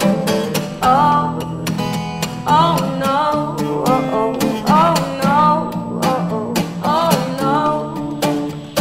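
Background pop song with strummed acoustic guitar and a steady beat.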